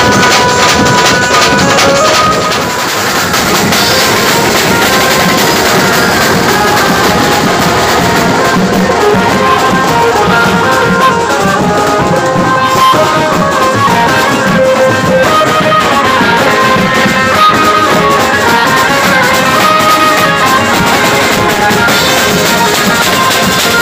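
Live Maharashtrian banjo-party band playing loud, fast music: a rack of snare-style drums and cymbals beating hard under a melody line.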